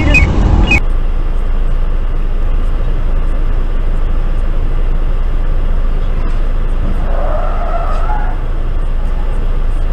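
Steady car and road noise with a low hum, as picked up by a dashcam. About seven seconds in, a car's tyres squeal for about a second and a half as it skids into a crash.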